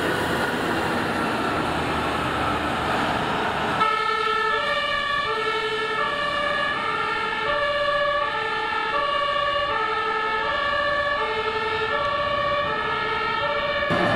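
Heavy diesel engine and tyre noise of the Rosenbauer Panther 6x6 airport crash tender driving past, with its 750 hp Volvo engine. About four seconds in, a two-tone emergency siren (German Martinshorn) starts and sounds its steady alternating high-low pattern to the end.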